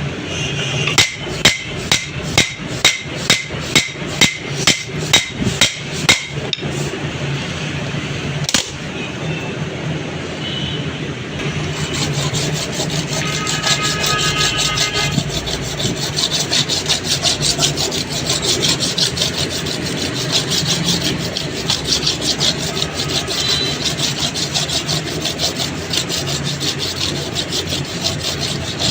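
Metal being worked with hand tools during a truck clutch pressure plate repair. First comes a run of about a dozen evenly spaced hammer blows, roughly two a second, then one more blow. From about twelve seconds in, steady rapid scraping like filing or rubbing on metal takes over.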